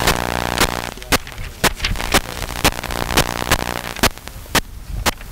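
Steady hand claps, about two a second, as if a few people are clapping in time. Background music fades out about a second in.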